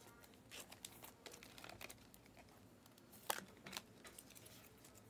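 Faint clicking and rustling of a stack of trading cards in rigid plastic toploaders being handled and flipped through, with one sharper plastic click a little past three seconds in.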